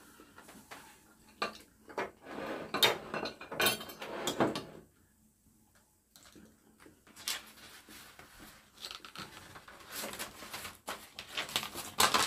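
Clinks and scrapes of plates, a fork and small plastic containers being moved about on a wooden table as it is cleared after eating, in short clusters with a near-silent pause about halfway through.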